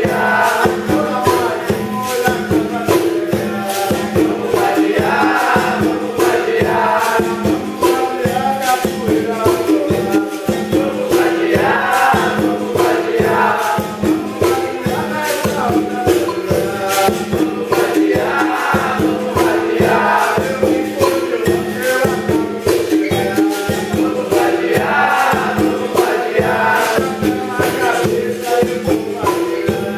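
Capoeira Angola roda music: berimbaus with a rattling shaker-like percussion in a steady, even rhythm, under a group singing together.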